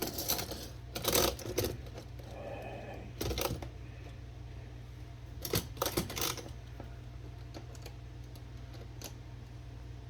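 Metallic clicks and clatter of parts and tools being handled on a Smith Premier No. 10 typewriter as it is taken apart, in four short bursts over the first six seconds, then a few faint ticks.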